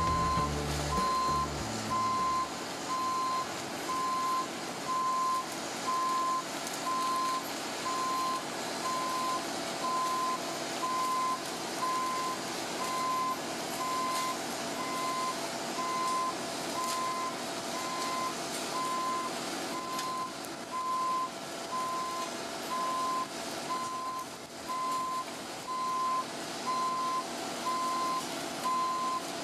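Travel alarm of a Cat 309 mini excavator beeping steadily, about one beep a second, over the machine's diesel engine and hydraulics running steadily.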